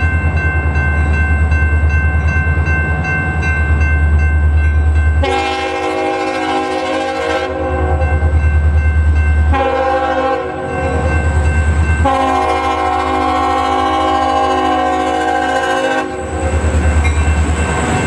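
Diesel locomotive's multi-chime air horn sounding for a grade crossing: a long blast, a short one, then a longer blast of about four seconds. Underneath run a low rumble and the steady ringing of the crossing bell.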